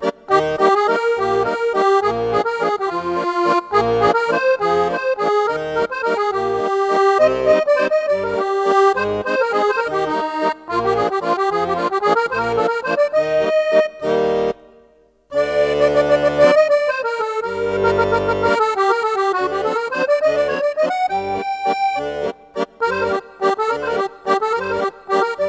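Instrumental background music with a steady bouncy beat; it drops out briefly about fifteen seconds in.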